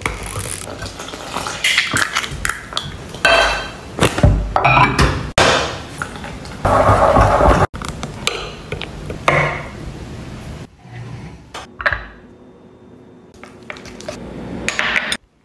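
A run of short kitchen prep sounds, each clip starting and stopping abruptly: a glass milk bottle being uncapped, then a spoon stirring thick batter in a glass bowl and a utensil beating in a small glass bowl, with clinks of metal on glass.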